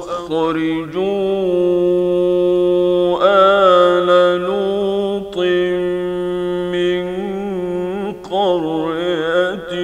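A solo male Quran reciter chanting in the melodic mujawwad style, holding long sustained notes with wavering ornamental turns. He is drawing out the phrase "illa an qalu akhriju ala Lut min qaryatikum".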